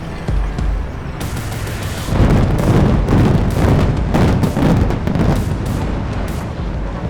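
Explosive demolition of a building: about a second in, a run of sharp cracks from the charges begins, and from about two seconds the loud rumble of the collapse swells, full of crashing debris, then slowly eases off.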